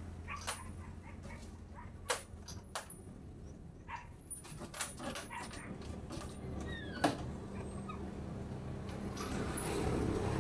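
Scattered clicks and knocks, the loudest about two seconds and seven seconds in. They come from a rope being hauled tight over aluminum-framed glass sliding-door panels on a mini truck's bed, with a few short high squeaks in between.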